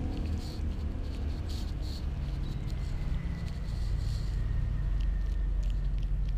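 A cat chewing and licking up soft rice right at the microphone: irregular small wet clicks a few times a second, over a steady low rumble.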